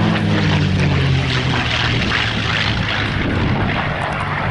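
A CA-18 Mustang's Merlin V12 engine running as the fighter flies its display. A deep engine note is strong for the first second or so, then fades into a broad rushing noise as the aircraft moves off.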